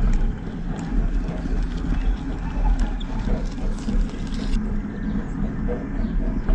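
A steady, loud, low mechanical rumble of a running vehicle or machine that cuts off abruptly near the end.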